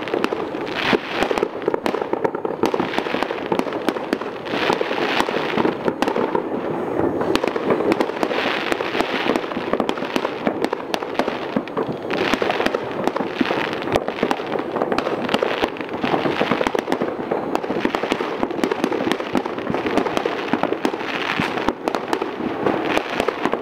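Many fireworks and firecrackers going off at once across a town, their countless bangs and crackles merging into one continuous, unbroken crackle.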